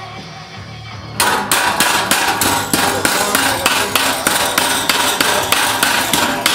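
Hammer striking metal, a steady run of sharp blows about three a second, starting about a second in.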